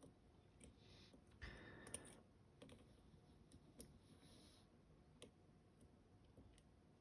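Faint, irregular small clicks and scrapes of a lock pick and tension wrench working the sliders inside a Caveo TS007 euro cylinder lock, with a brief louder rustle about a second and a half in.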